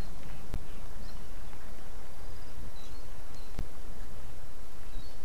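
Steady rain hiss on an outdoor wildlife camera microphone, with a couple of sharp ticks of drops striking it and faint high chirps of small creatures behind.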